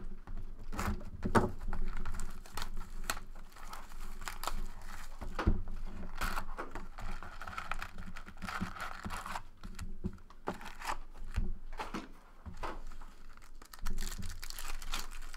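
A cardboard Fleer Retro basketball card box being opened and its card packs handled: scattered taps and scrapes, tearing, and crinkling of the pack wrappers.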